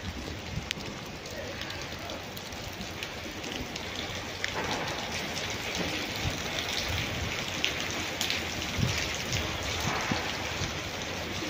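Steady rain falling on wet pavement, with scattered drops ticking. It grows a little louder about four seconds in.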